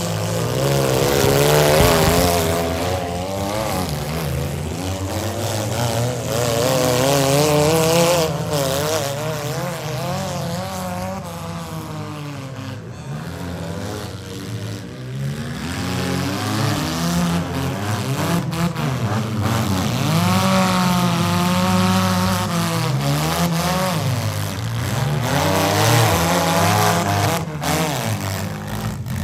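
Several demolition derby compact cars' engines revving hard and unevenly as they push and ram each other, with a few sharp crashes of cars colliding.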